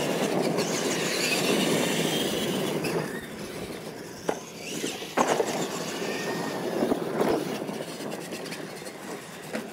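Radio-controlled monster trucks racing on a dirt track: motors and gears whining high while the tyres churn the dirt, loudest over the first three seconds, then easing, with a few sharp knocks in the middle.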